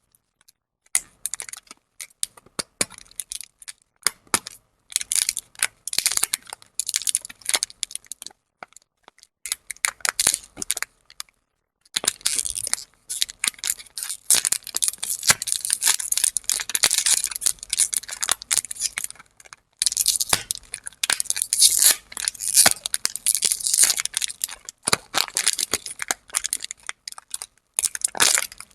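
Plastic lollipop wrappers crinkling and tearing close to the microphone, in irregular bursts of crackling and small clicks with short pauses between.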